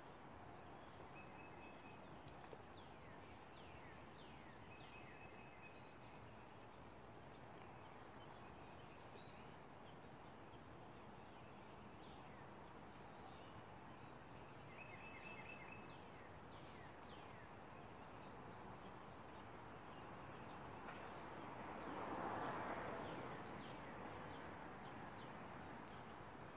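Near silence: faint outdoor ambience with a few faint, brief bird trills and chirps, and a soft swell of noise about 22 seconds in.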